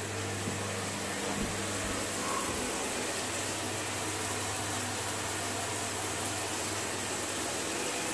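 Shower water spraying steadily from a running showerhead, with a low steady hum underneath.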